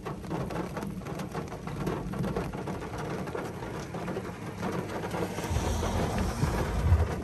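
Rain falling on a parked car, heard from inside as a steady hiss with many small drop hits on the roof and glass. A low rumble of thunder swells about five and a half seconds in and fades just before the end.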